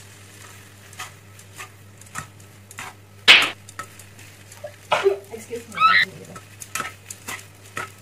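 Tongs tossing spaghetti in a small rectangular frying pan: scattered clicks and scrapes of metal against the pan over a faint sizzle, with one louder clack about three seconds in.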